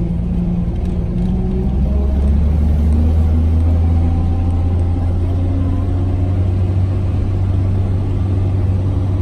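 Toyota FJ40 Land Cruiser's engine running as the jeep drives along. It pulls harder about two seconds in, its low drone rising a little in pitch, and then holds steady.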